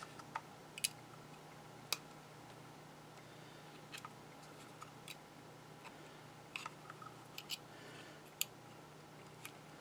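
Scattered small clicks and taps of a puzzle box being handled and picked at by hand, with a faint steady hum underneath.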